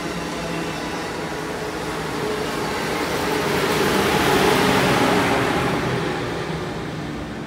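Amtrak Acela Express electric trainset passing close by, its trailing power car going past. A steady hum and the running noise of its wheels on the rails swell to their loudest about four seconds in, then fade as the train moves off.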